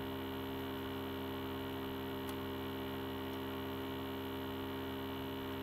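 Steady electrical mains hum, a low buzz made of many evenly spaced tones, with one faint click about two seconds in.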